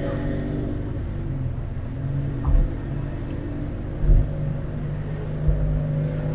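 Suzuki Swift Sport ZC33S's K14C 1.4-litre turbo four with an HKS Hi-Power SPEC-L muffler, heard inside the cabin, running steadily at low revs. A few short low thumps come through about two and a half, four and five and a half seconds in.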